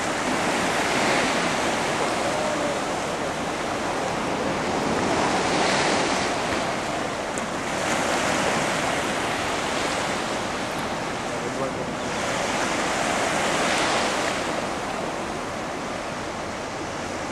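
Flood water rushing through the open spillway gates of Fort Randall Dam, a steady dense rush with slow swells in loudness, and gusts of wind on the microphone.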